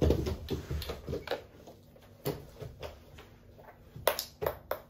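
Light, scattered clicks and knocks of small plastic toys being handled and set down on a wooden floor, with a few soft low thumps at the start and a small cluster of clicks near the end.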